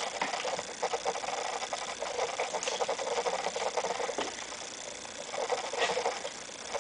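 Baby doorway jumper rattling and clicking as the baby moves in it: a dense, steady run of small clicks, easing a little past the middle.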